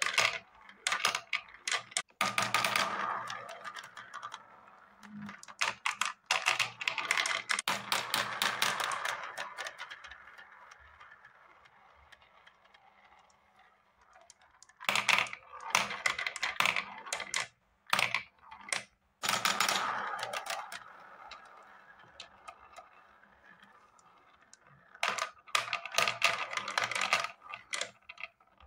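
Balls rolling around a plastic spiral-funnel marble run and clattering as they drop through the centre hole into the base. Several spells of rapid clicking and rattling come a few seconds apart, with a fainter steady rolling whir between them.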